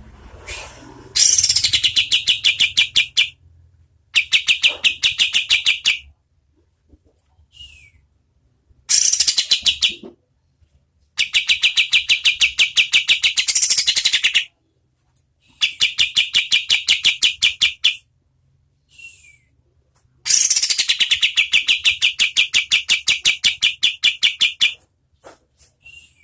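Kapas tembak (olive-winged bulbul) singing its fast rattling 'tembakan' trills: six loud bursts of rapid clicking notes, each lasting from about one to four seconds. Several open with a note sweeping downward. Short downward-slurred call notes fall in the gaps between bursts.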